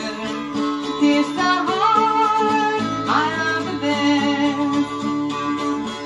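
Dulcimer music played from a vinyl record: a plucked melody with sliding notes over steady drone notes.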